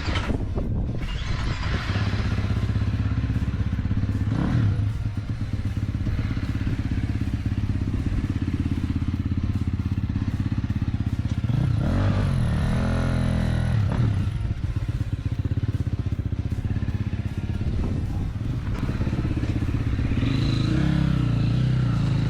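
Dirt bike engine running steadily, revved up and back down several times, the longest rev about twelve seconds in.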